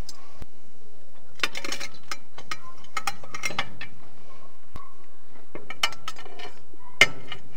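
Sharp clicks and clinks in small clusters, with one louder knock about seven seconds in, as boiled lamb heads are handled and set down on a ceramic serving plate.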